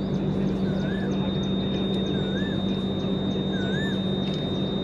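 Steady electrical hum and a thin high whine from a halted electric train, with a bird giving short wavy whistles about every second and a half.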